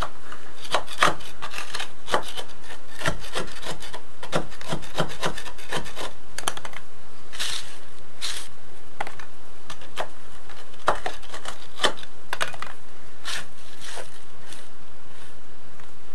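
Irregular scraping and scratching strokes of a thin hand tool on a concrete floor, with a gloved hand rubbing and sweeping grit and dust off the floor.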